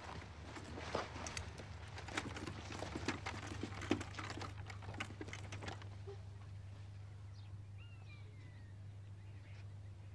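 Firing squad readying its flintlock muskets: scattered clicks and knocks of the weapons being raised and levelled for about six seconds. Then a quiet, tense wait with only a low steady hum.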